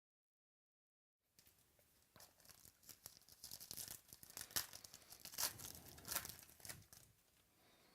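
Trading-card pack wrapper being torn open and crinkled: a run of quick rips and crackly rustles. It begins after about a second of dead silence, and is loudest in the middle.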